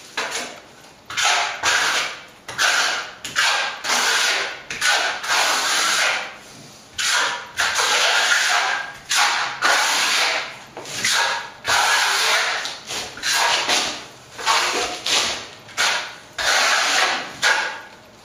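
Plastering trowel scraping the white set coat of finish plaster across a wall: a run of scraping strokes, each under a second, with short pauses between runs.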